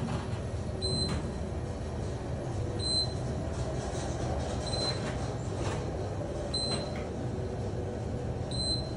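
Otis elevator car descending: steady low rumble of the ride, with a short high beep about every two seconds as each floor is passed.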